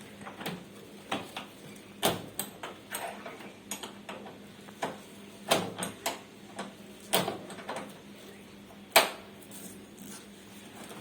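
Scattered knocks, clicks and clatter of hard objects being handled and set down, about a dozen at uneven intervals, the sharpest one near the end.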